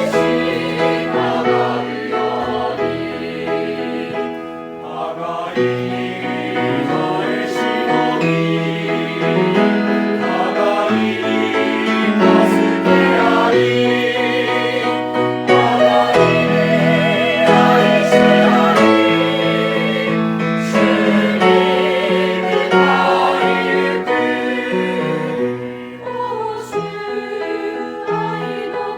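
Church choir singing a gospel hymn in several voices, with wavering held notes.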